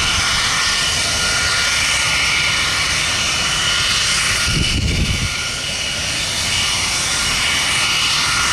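English Electric Lightning's twin Rolls-Royce Avon turbojets idling on the ground: a loud, steady jet whine with several held high tones over a rush of noise. A brief low rumble comes about five seconds in.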